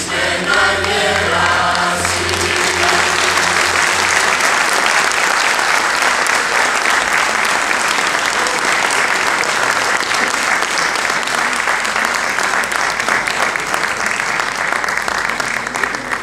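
A mixed choir holds the final chord of a song for about two seconds, then an audience applauds steadily for the rest of the time, dying down at the very end.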